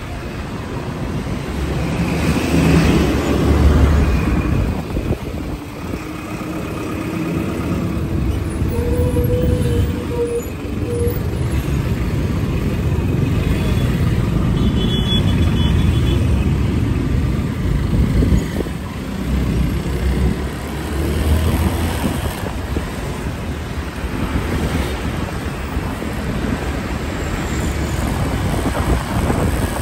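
City road traffic heard from a moving vehicle: a steady low rumble of engines and tyres that swells and eases, with a few short beeps about halfway through.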